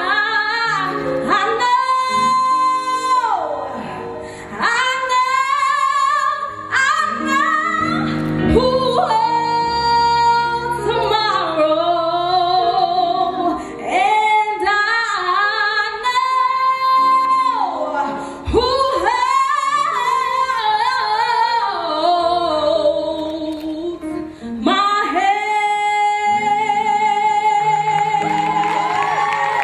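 A woman singing solo into a microphone over instrumental accompaniment, in sung phrases with vibrato, closing on a long held note near the end.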